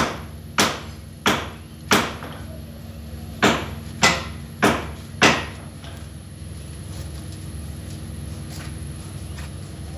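Eight sharp hammer blows, a little more than half a second apart with one short pause after the fourth, each ringing briefly; then only a steady low hum.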